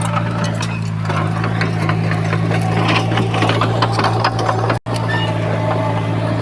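Heavy diesel earthmoving machinery running steadily, with irregular metallic clicks and clanks over the engine sound. The sound drops out for an instant about five seconds in.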